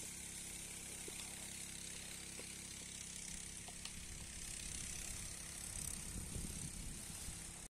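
Water jet spraying from a hose over orchard trees, a steady hiss, over a steady low mechanical hum. A rougher low rumble swells in the second half.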